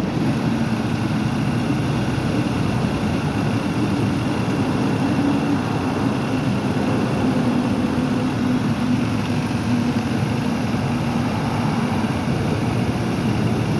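Car engine idling steadily with the air conditioning running.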